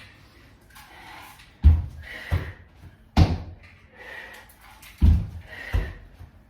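Heavy thuds on the floor from feet landing as a person jumps in and back during dumbbell thrusters from a plank, coming in pairs about every second and a half.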